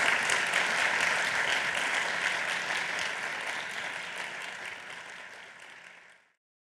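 Audience applauding, dense and steady at first, then fading away and stopping near the end.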